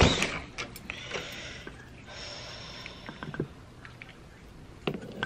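Handling noise: a loud knock at the start, then rustling and scattered light clicks and knocks as things are moved about close to the microphone, with a soft hiss about two seconds in.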